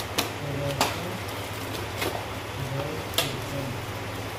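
Plastic and tape wrapping on a long parcel being pulled and torn open by hand: a few short, sharp rips over a low steady hum.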